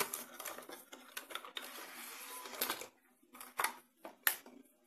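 Cardboard box and clear plastic packaging rustling and scraping as a hard drive enclosure is slid out of its box, then two sharp clicks near the end.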